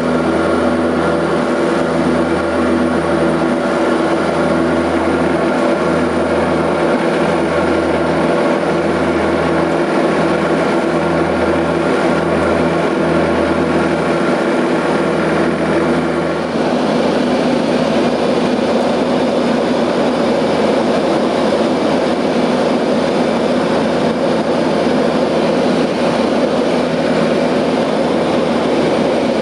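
Propeller plane's engines droning steadily, heard inside the cabin. About halfway through, the steady tones give way to a more even rushing noise.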